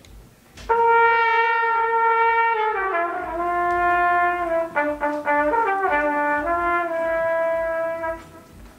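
Unaccompanied trumpet playing a slow, sustained phrase: a long held note starting about a second in, a step down in pitch, a few short notes, then another long note that breaks off near the end.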